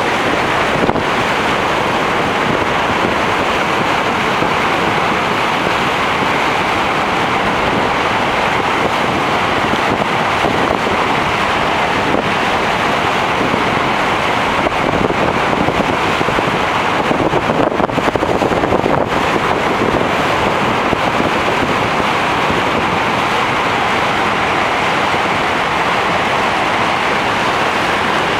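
Niagara's Horseshoe Falls: a steady, loud rush of water pouring over the brink and crashing into the gorge.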